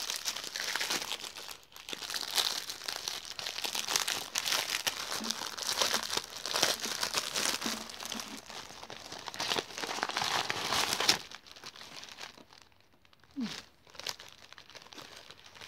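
Clear plastic packaging bags crinkling and rustling as hands open them and handle the contents. The crinkling is dense for the first eleven seconds or so, then drops to a few faint rustles.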